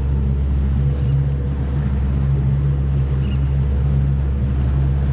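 90 hp Yamaha four-stroke outboard running steadily under way, a constant low drone, with water rushing along the hull of the small boat.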